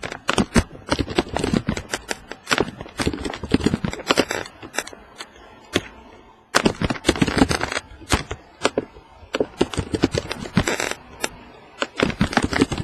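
Cards and paper being handled at a table: a fast run of rustling, scraping and clicking, with a short pause about halfway through.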